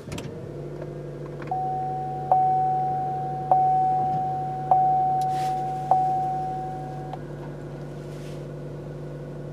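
2015 Chevy Cruze LTZ's 1.4-litre turbocharged four-cylinder catches on push-button start and settles into a steady idle. Over the idle a dashboard warning chime dings about four times, a little over a second apart, then stops.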